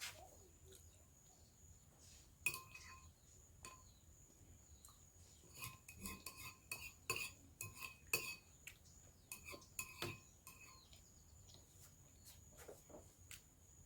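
Metal spoon clinking and tapping against a dish while eating, in scattered light taps that come thickest a little past the middle.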